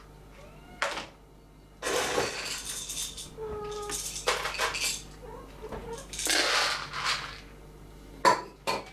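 Dishes and cat-food bowls clattering and clinking in several separate bursts as the cats' meal is got ready, with a few short cat meows between them.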